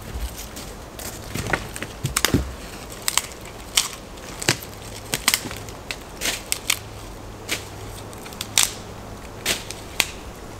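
Dry sticks being snapped by hand: a run of sharp, separate cracks and crackles, roughly one or two a second at uneven spacing.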